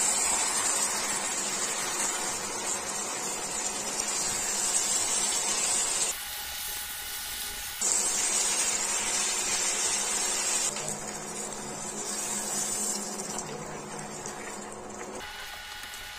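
Giant freshwater prawns and potatoes sizzling in oil and spice paste in a frying pan as they are stirred in: a steady frying hiss. The hiss drops out for about a second and a half some six seconds in, then slowly fades.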